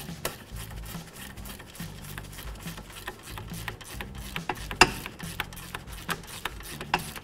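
Ratchet with a 17 mm socket clicking in quick runs as it snugs up a brake caliper bracket bolt, with one louder metallic click about five seconds in.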